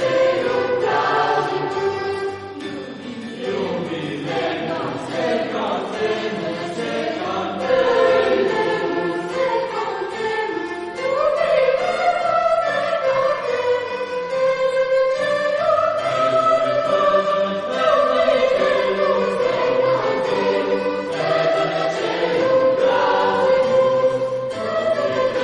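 A choir singing a sacred choral piece, several voice parts in long held notes.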